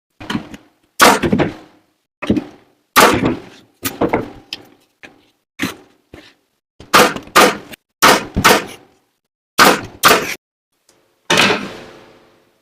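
Sharp knocks on wood, about fifteen at uneven intervals, some in quick pairs, each dying away quickly; the last rings out longer.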